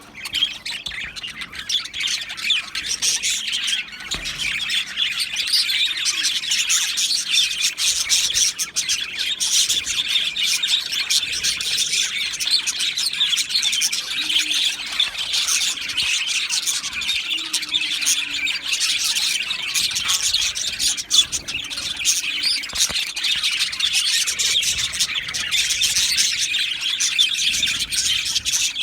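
Many budgerigars chattering and chirping together in an aviary: a dense, continuous flock warble of overlapping high chirps and squawks.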